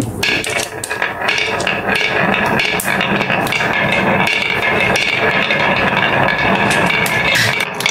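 Several glass marbles rolling together along a carved wooden wave track: a steady rolling rumble with frequent sharp clicks as they run through the hollows.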